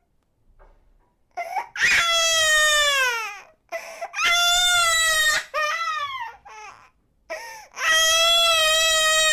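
Baby crying in long, high-pitched wails, each sliding down in pitch as it ends. Three long wails come with shorter cries and catches of breath between them, after a brief quiet start.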